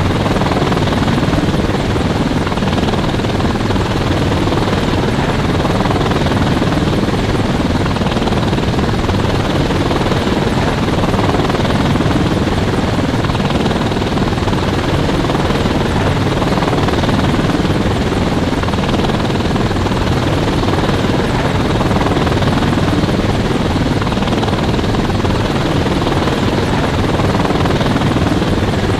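Helicopter running steadily, a continuous loud rotor and engine noise that holds an even level throughout.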